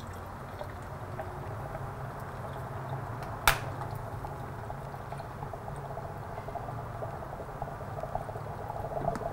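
Distilled flush water gurgling and bubbling through a motorcycle's cooling system as it drains, with one sharp click a little over a third of the way in.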